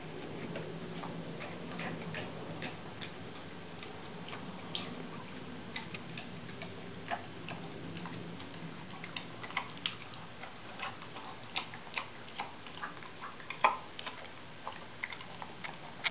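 A dog eating dry kibble from a stainless steel bowl: irregular crunches and sharp clicks of the food and her mouth against the bowl, one louder click near the end. She eats with an odd mouth action, which the owner puts down to a sore throat, tongue or jaw.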